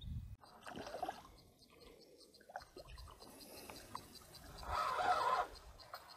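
A hooked perch splashing at the water's surface as it is reeled to the bank, loudest about five seconds in, with faint clicks.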